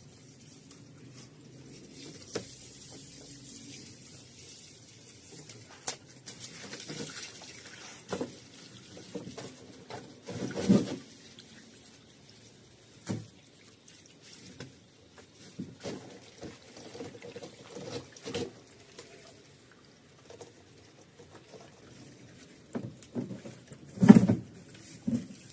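Scattered light knocks and clatter of containers and fridge parts being handled and set down, irregular and loudest about eleven seconds in and again near the end.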